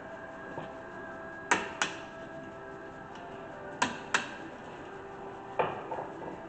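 Sharp metallic clicks from hand tools being handled while work starts on a car's front brakes. They come in three pairs, about two seconds apart, over a faint steady hum.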